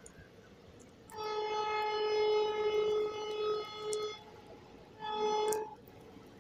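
Railway locomotive horn sounding a long blast of about three seconds and then a short blast about a second later, each one steady, unwavering tone, over the faint noise of passenger coaches running past.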